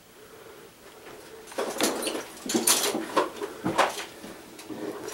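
A caver breathing hard in loud, irregular gasps and grunts of effort while climbing up through boulders, starting about a second and a half in.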